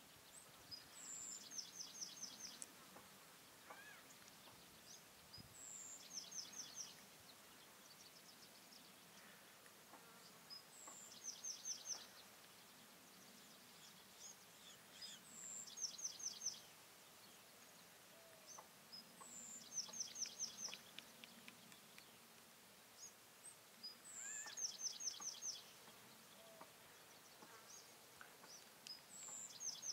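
A small songbird singing a short song of one high note followed by a quick trill of descending notes. The song repeats about every four to five seconds, about seven times, over a quiet outdoor background.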